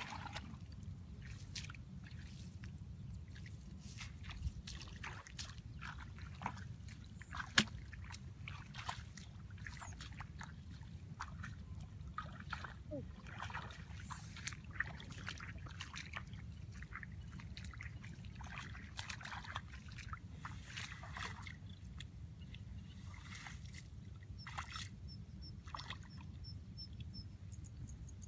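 Water sloshing and splashing in many short, irregular bursts over a steady low rumble, with one sharper knock about seven and a half seconds in.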